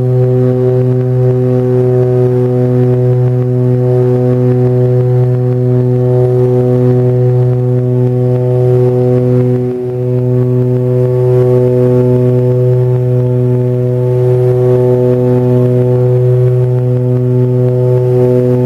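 Propeller aircraft's engine and propeller droning steadily at climb power, heard inside the cabin as a loud low hum with a slow regular throb. The level dips briefly about ten seconds in.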